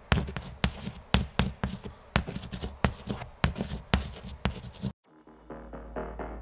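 Scratchy pen-scribbling sound effect, quick irregular strokes a few a second, as a logo is drawn. It cuts off abruptly about five seconds in, and an electronic music sting starts with a rising low tone and repeated notes.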